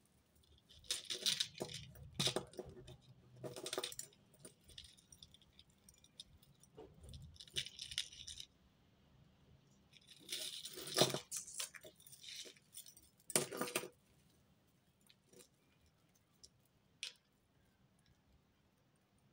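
Metal costume-jewellery chains and bangles jingling and clinking as they are handled and untangled by hand, in bursts through the first fourteen seconds or so, then only a few scattered clicks.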